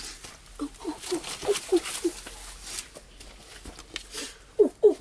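An animal calling: short calls that each drop in pitch, in quick runs of about four a second, about six in the first half and a louder pair near the end.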